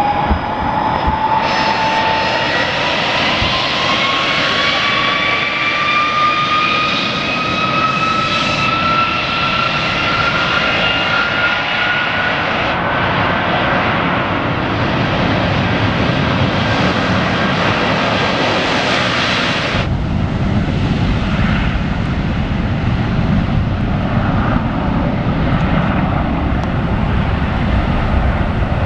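Airbus A330-300's Rolls-Royce Trent 700 turbofans at take-off thrust during the take-off roll: a loud steady roar with a high whine that climbs steadily in pitch. About two-thirds of the way through, the whine drops away and a deep rumble takes over as the jet heads away down the runway.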